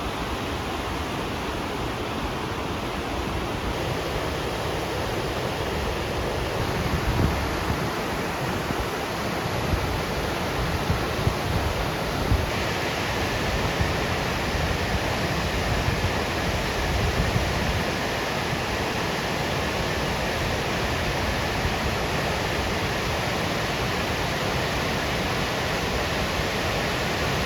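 Waterfall pouring: a loud, steady rush of falling water, with low rumbles coming and going underneath. It turns brighter and hissier about halfway through.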